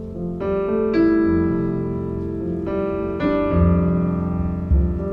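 Piano playing slow, sustained chords, a new chord struck every second or so and left to ring.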